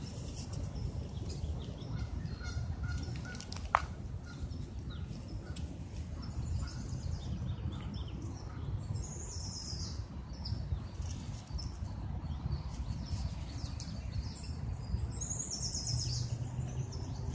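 Outdoor ambience of birds chirping over a low, steady rumble, with one sharp click about four seconds in.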